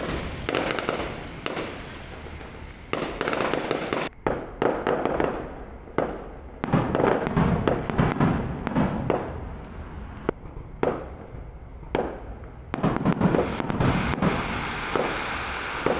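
Aerial firework shells bursting overhead: many sharp bangs in quick succession, coming in volleys with crackling between them.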